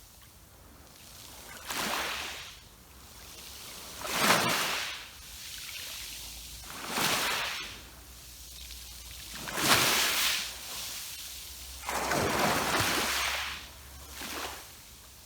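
Sea waves breaking and washing against rocks, six surges of rushing water about two to three seconds apart. The ones about four and ten seconds in are the loudest.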